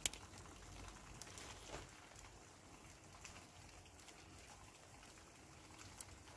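Faint handling noise: a sharp click right at the start, then a few soft ticks and rustles as hands tie detonator leads onto a shock-tube line.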